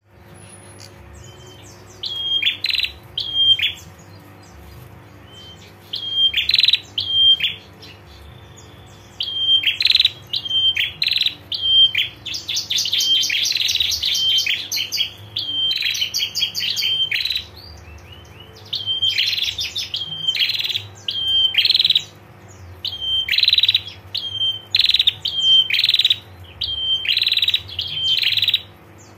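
Female prenjak giving its 'ngetir' call: bursts of rapid, sharp, high chips, each lasting a second or two and repeated after short pauses, with one longer unbroken run about halfway through. A faint steady hum runs underneath.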